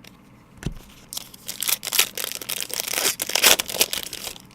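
Plastic trading-card packaging crinkling and tearing, crackly and loud for about three seconds, after a soft knock about half a second in.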